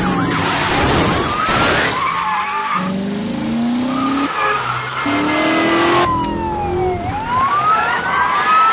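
Car-chase sound effects cut together: car engines revving hard and climbing through the gears, with tyres squealing and skidding in high sliding screeches. The sequence changes abruptly a few times, like an edited montage.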